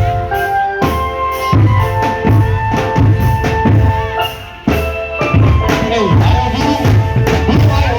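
Marching drum band playing a driving beat of bass and snare drums with a melody held above it. The music thins out about four seconds in, then comes back in sharply at full strength.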